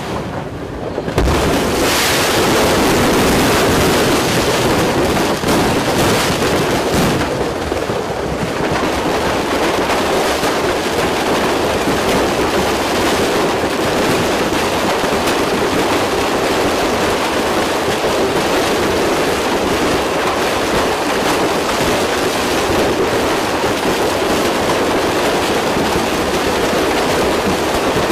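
A sudden blast about a second in, then a dense, unbroken rush of stored fireworks crackling and bursting in the burning warehouse, with a few more distinct bangs over the next several seconds.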